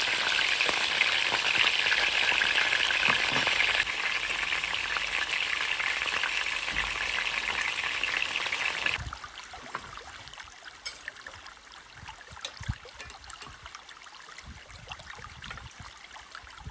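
Food sizzling as it fries in a hot pan, with a dense, steady hiss that cuts off suddenly a little past halfway. Afterwards, only faint light clicks and taps remain.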